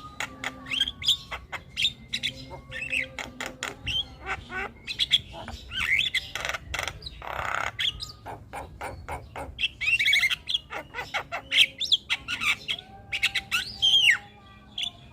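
Javan mynas calling in a busy, nonstop stream of sharp clicks, whistled notes and chirps, with one harsh rasping call about seven seconds in.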